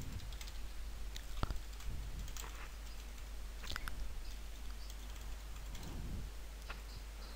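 Typing on a computer keyboard: irregular, scattered key clicks.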